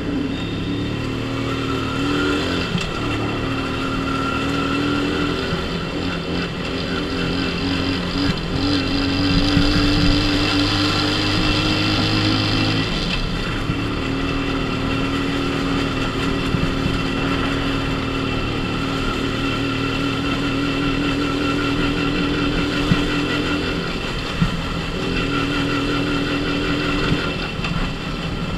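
Dafra Super 50cc motorcycle engine running on the road at a steady pace, its pitch holding level for stretches and breaking off briefly a few times before picking up again.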